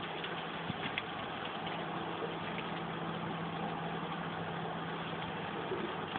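Hail shower falling steadily on a wet path and fence, an even hiss with a few faint ticks. A low steady hum runs underneath and stops about four and a half seconds in.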